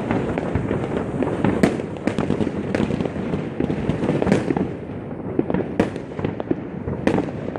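Many fireworks and firecrackers going off all around at once: a dense, continuous crackle of bangs, with louder single bangs standing out every second or two.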